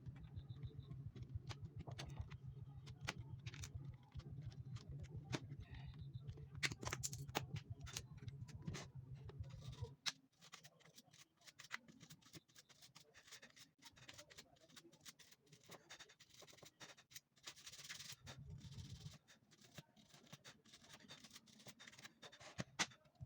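Faint, irregular clicking and scraping of computer keyboard keys being cleaned by hand, with a low hum under the first half.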